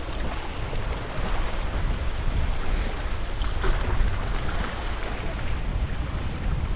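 Gusty wind rumbling on the microphone over small lake waves lapping and splashing steadily.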